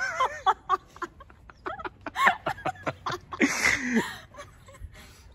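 A woman laughing in several short, breathy bursts.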